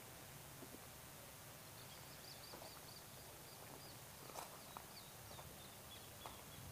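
Faint outdoor ambience with a small bird chirping a quick run of short, high notes, starting about two seconds in and dropping a little in pitch near the end. There are a few soft clicks and a low background rumble.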